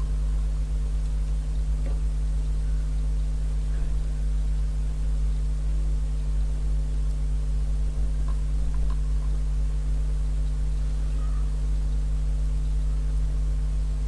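Steady low electrical mains hum, even throughout, with a few faint small ticks.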